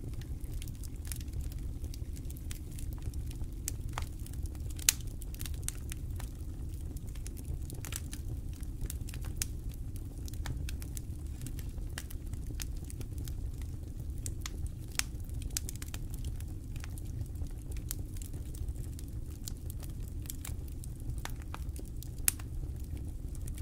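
Wood campfire crackling, with irregular sharp snaps and pops over a low steady rumble; two pops stand out louder, about five seconds in and near the end.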